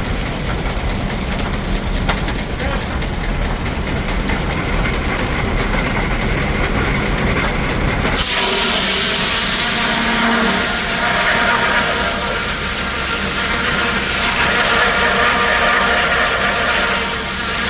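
Steam-engine-powered Frick sawmill running. About eight seconds in, the low rumble suddenly drops away and a louder, higher hissing whine takes over.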